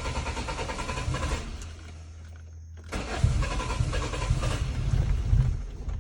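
1997 Toyota Corolla engine being cranked on a hard cold start: two separate tries of a couple of seconds each, a rapid chugging from the starter and engine, with a quieter steady hum between them.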